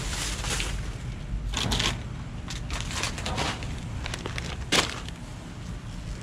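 Crinkling and rustling of chip bags and plastic trash bags being grabbed and handled, in irregular bursts, with a sharp knock about five seconds in, over a steady low rumble.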